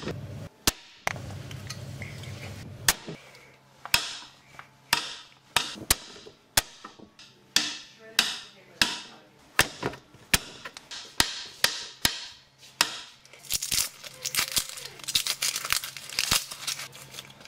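Kitchen knife chopping vegetables on a chopping board: sharp, separate chops about one to two a second, coming faster and closer together near the end.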